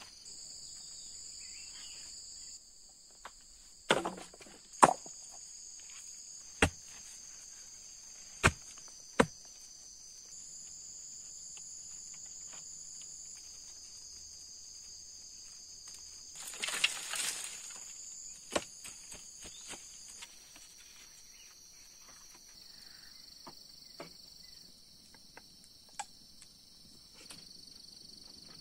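Forest insects chirring steadily on a high pitch, the chorus jumping abruptly to a different pitch several times. Over it come about half a dozen sharp wooden knocks, mostly between 4 and 9 seconds in, and a louder rustle a little past the middle.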